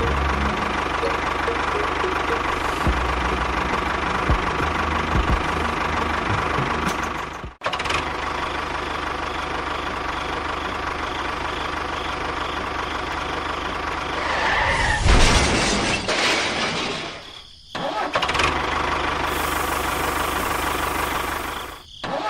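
A steady engine-like running sound. It drops out abruptly twice, about a third of the way in and again near the end, and swells louder for a moment a little past the middle.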